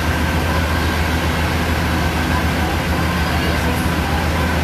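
Fire truck engine running steadily at close range, a constant low drone with a deep hum.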